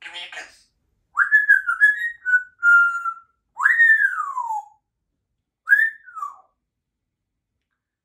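Congo African grey parrot whistling: a short rough sound, then a run of whistled notes, a loud note that rises and glides down, and a short falling whistle near the end.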